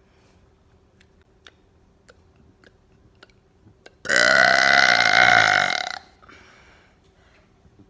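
A woman's deliberate loud burp, one long belch of about two seconds starting about four seconds in. A few faint clicks come before it.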